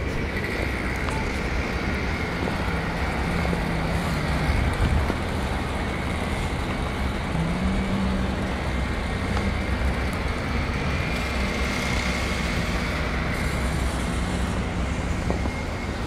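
Steady rumble of road traffic, with a faint engine hum that rises and falls in pitch now and then.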